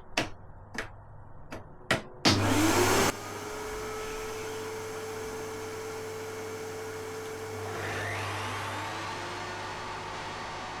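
Evolution R255 table saw: a few knocks and clicks, then about two seconds in the saw is switched on with a loud surge and runs with a steady motor whine and hum. About eight seconds in its note changes and then settles again.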